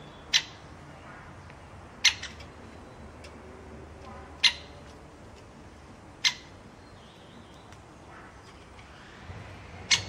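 Great spotted woodpecker giving its sharp single 'kik' call five times, each about two seconds apart.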